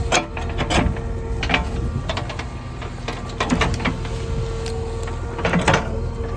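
JCB 3DX backhoe loader working: its diesel engine runs steadily under a constant whine. Sharp cracks and knocks come several times, heaviest near the end.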